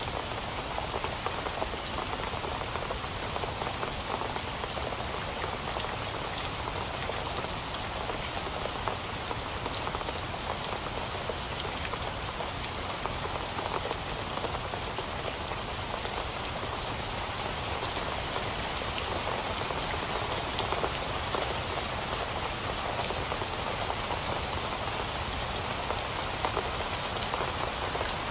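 Steady rain falling on a surface, a continuous hiss with countless small drop ticks.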